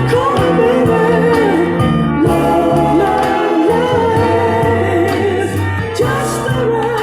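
A soul vocal group singing a sustained melody over a band, with bass and a steady accompaniment.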